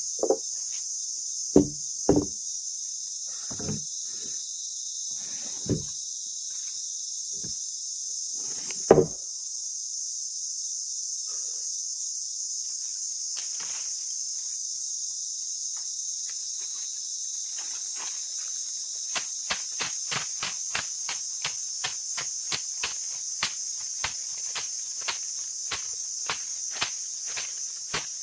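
Steady chorus of insects, with a few hard wooden knocks and thumps in the first ten seconds, the loudest about nine seconds in, then a run of light, regular clicks about twice a second near the end.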